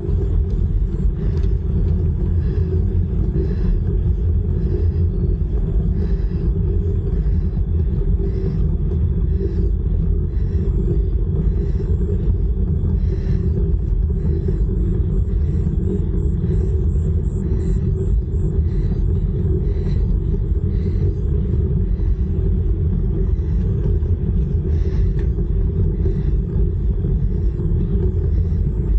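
Steady low wind rumble on the microphone and tyre noise of a folding bicycle rolling over smooth tarmac at speed, with faint clicks recurring through it.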